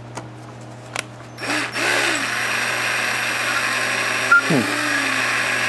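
Electric drill starts about two seconds in and runs steadily, spinning a homemade jig that turns an engine valve against its seat in lapping compound. A few light clicks come before it, and there is one sharp knock a little past four seconds.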